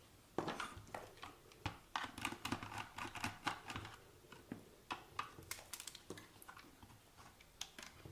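Hands working at the opened plastic WLtoys 144001 transmitter: a quick, irregular run of small plastic clicks, taps and short scrapes, busiest in the middle.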